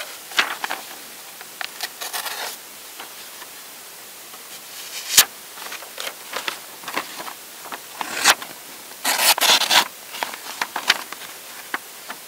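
An unsharpened knife being pushed through a sheet of printer paper, the paper scraping, tearing and crinkling in short irregular bursts with sharp crackles, the longest burst about nine seconds in. The ragged tearing rather than a clean slice is the sign of a dull edge.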